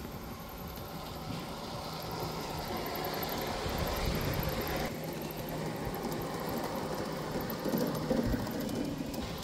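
Garden-scale model ICE train running on outdoor track: the hum of its small electric motors and its wheels rolling on the rails, growing louder over the first few seconds as it passes close.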